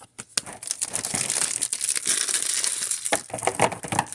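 Packaging wrappers from a card box being crumpled and scrunched by hand, a dense crinkling crackle full of small clicks.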